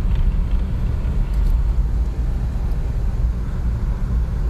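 Steady low rumble of a car's engine and tyres heard from inside the cabin while driving slowly on a snow-covered road.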